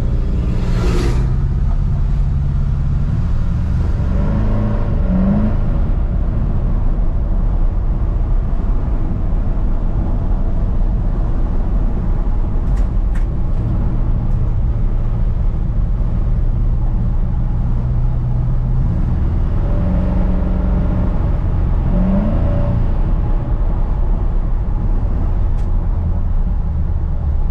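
Chevrolet C10 pickup's engine, freshly converted from carburettor to EFI, running on the road, heard from inside the cab: steady running, rising in pitch as it accelerates about 4 s in and again about 21 s in. An oncoming truck passes with a brief whoosh about a second in.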